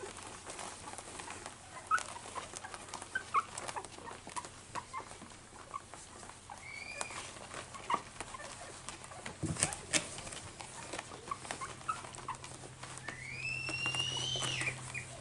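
Two-and-a-half-week-old cockapoo puppies making small squeaks and whimpers while nursing and shuffling in the whelping box, with many soft clicks and rustles. Near the end one puppy gives a longer whine that rises and then falls.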